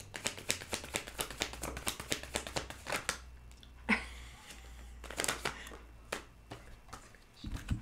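A tarot deck being shuffled by hand: a rapid run of card clicks for about three seconds, then shorter bursts of shuffling with pauses between them, and a low thump near the end.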